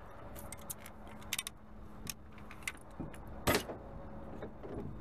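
Metal clicks and clinks of a ratchet tie-down strap's buckle and hardware being handled as the webbing is threaded through it, with one sharp click about three and a half seconds in.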